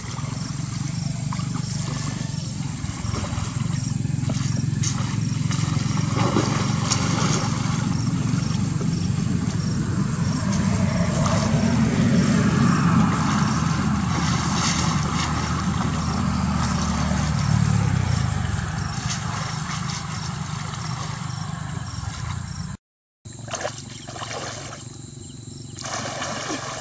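Water sloshing and splashing as a person wades and works a bamboo basket fish trap in a flooded rice-field channel, over a steady low rumble that fades about two thirds of the way in.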